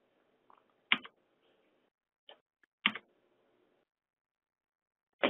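A few short, sharp clicks spaced a second or so apart, with near quiet between them.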